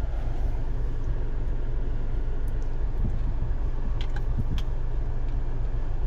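Steady low rumble of road and engine noise inside a Tata Altroz's cabin, with a few faint clicks about four seconds in.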